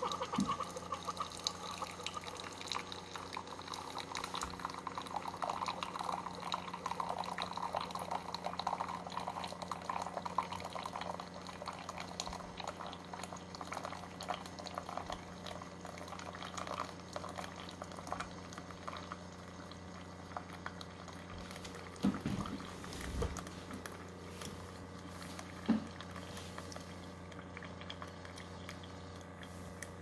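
Keurig K-Cafe single-serve coffee maker brewing a 10-ounce cup: a thin stream of coffee pouring steadily into a glass mug over a steady machine hum, the splashing slowly softening as the mug fills. A few soft knocks about two-thirds of the way through.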